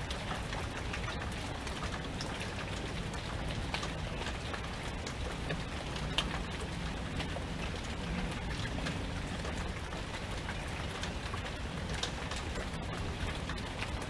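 Steady rain falling, with many scattered individual drops ticking on a surface.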